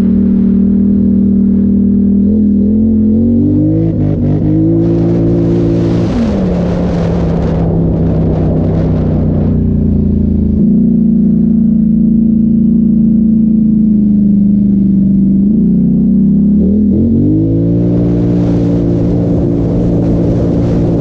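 2017 Polaris Sportsman XP 1000 ATV's twin-cylinder engine running under throttle as it is ridden over dirt, its pitch climbing about 4 seconds in, dropping about 6 seconds in, holding steady, then climbing again near the end. A rushing noise rises during the faster stretches.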